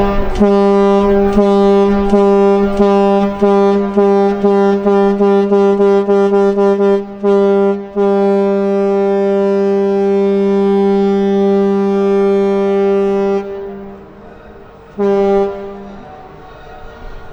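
Horn of the 1979 river cruise ship Lev Tolstoy (Project Q-056) sounding a departure farewell signal. It gives a rapid run of short blasts, about two a second, then one long steady blast of about five seconds, then a single short blast.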